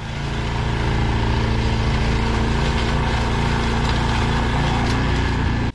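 Single-cylinder Briggs & Stratton Snow Series engine on a John Deere snowblower, running steadily on its new replacement carburetor. It swells in level over the first second, then holds even.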